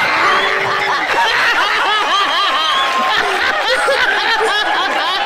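Many people laughing together, a dense mass of overlapping laughs, cut off abruptly at the end like an added laughter track.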